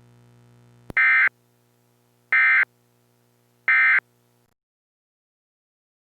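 Emergency Alert System end-of-message signal: three identical short, buzzy bursts of SAME digital data tones about 1.4 s apart, marking the close of the alert. A faint low hum sits under them and stops shortly after the last burst.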